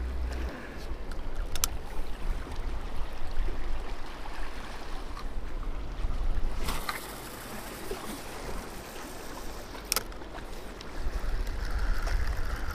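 Wind buffeting the microphone with sea water washing against shore rocks, and a couple of sharp clicks.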